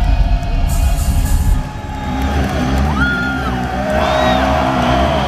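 A live rock band playing loud amplified music, heard from within the crowd. Heavy drums and bass drop away about a second and a half in, and a repeating low riff follows with gliding pitched notes over it.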